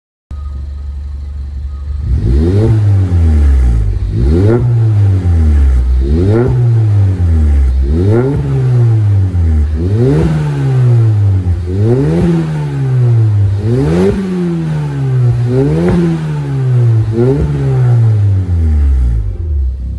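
Suzuki Swift Sport ZC33S's 1.4-litre turbocharged four-cylinder through a TM-SQUARE R-60 aftermarket exhaust, stationary and warming up: idling, then blipped about nine times roughly every two seconds. Each rev climbs sharply and falls back to idle.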